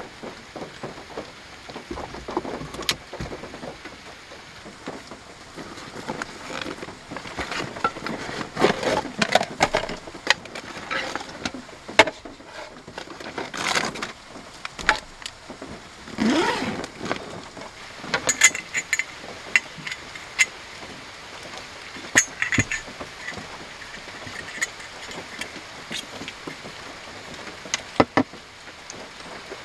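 Camping gear being handled in a car: a cloth bag rustling, knocks and clicks on a wooden tabletop, and several small metallic clinks in the second half, over a steady hiss of rain on the car.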